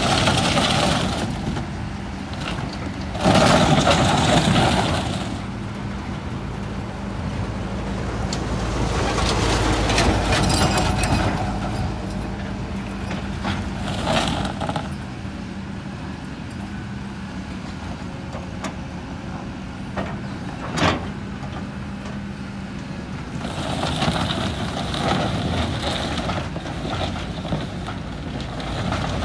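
Kobelco hydraulic excavator's diesel engine running under load as it shoves a steel sand-dredger barge across gravel, with louder surges of scraping and grinding about three seconds in, around ten seconds and again near the end, and a single sharp knock a little past twenty seconds.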